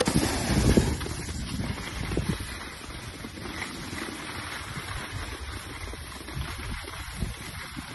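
Wind buffeting the microphone in a low rumble, mixed with the rushing hiss of a snowboard sliding over groomed snow. It is loudest in the first second as the rider passes close, then settles to a steadier, quieter rush.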